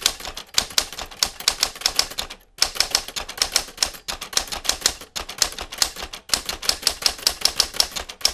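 Manual typewriter typing: fast runs of key strikes, about eight a second, broken by brief pauses about two and a half and six seconds in.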